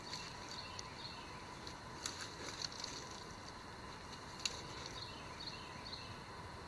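Faint scratching and small clicks from handling a crumbling, dirt-crusted relic, with one sharper click a little after halfway. Behind them is a faint steady outdoor background with a few short chirps near the end.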